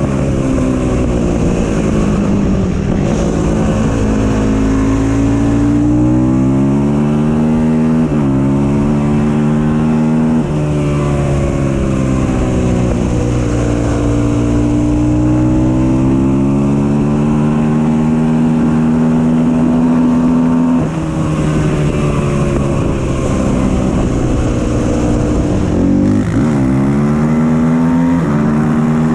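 Yamaha YFZ450 quad's single-cylinder four-stroke engine running hard while being ridden. Its note rises and falls with the throttle, with a few quick sharp dips in pitch.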